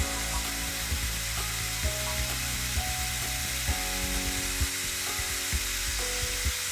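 Powdered boric acid packing sizzling and crackling as it melts over a steel part being heated to an orange glow for hardening, over a steady hiss, with soft background music.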